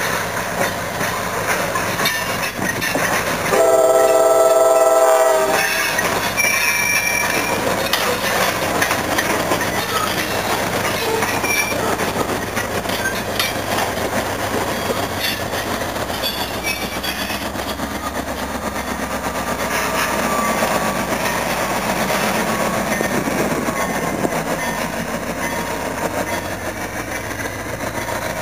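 CSX diesel freight train of tank cars rolling past, with steady wheel noise and clickety-clack over the rail joints. A diesel locomotive horn sounds one blast of about a second and a half, roughly four seconds in.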